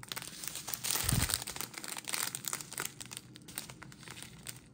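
Crinkling of thin plastic bags of diamond painting drills as a strip of them is handled, with a soft low thump about a second in.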